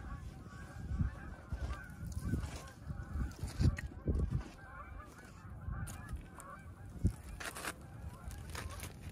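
A flock of birds calling continuously in the background, many short wavering calls overlapping, over low rumbling and a few sharp clicks.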